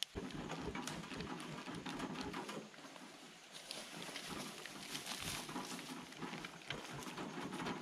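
Rustling and crackling with many small clicks, a little quieter about three seconds in: dry branches dragged and footsteps through dry leaf litter, with plastic packaging being handled close by.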